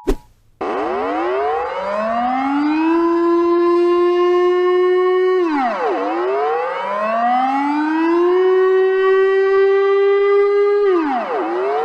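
Civil defense siren wailing: its pitch climbs over about two seconds, holds steady, then drops sharply and climbs again, twice. It opens with a sharp click as a steady two-tone alert signal cuts off.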